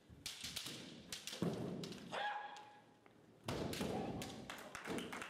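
A kendo bout: fencers shouting kiai, thudding stamps of bare feet on the wooden floor, and sharp clacks of bamboo shinai. A drawn-out shout comes about two seconds in, and a loud burst of shouts and strikes follows from about three and a half seconds.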